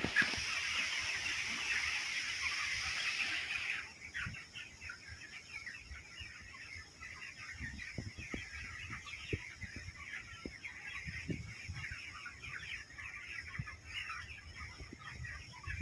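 A flock of chickens peeping and clucking, many birds at once. About four seconds in, the sound drops to sparser, quieter calls with occasional soft low knocks.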